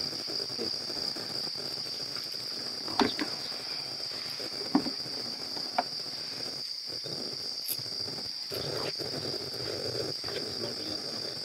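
Crickets chirping in a steady, unbroken high trill, with a few soft clicks about three, five and six seconds in.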